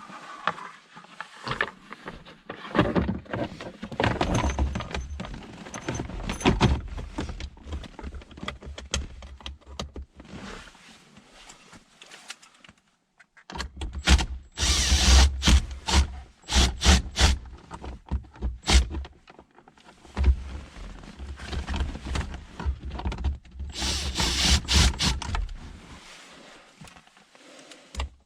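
Irregular thunks, clicks and rattles of hand tools and parts being worked on, in uneven clusters with pauses between.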